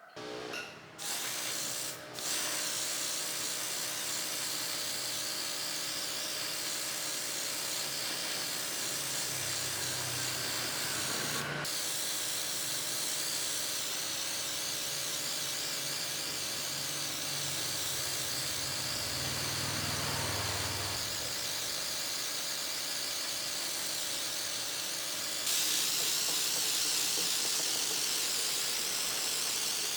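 Steady hissing spray from a pressurised tool, with a faint motor hum underneath. It starts with a couple of short bursts, then runs on and gets louder about 25 seconds in.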